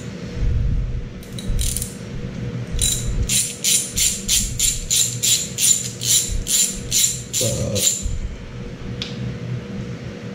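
Quarter-inch drive ratchet clicking as it is swung back and forth, loosening the valve cover bolts. A few short bursts come first, then a steady run of about four clicks a second for several seconds.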